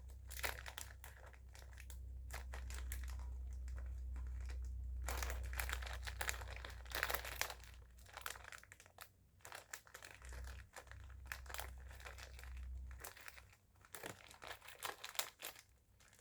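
Plastic instant-noodle packet crinkling in irregular bursts as it is handled and opened.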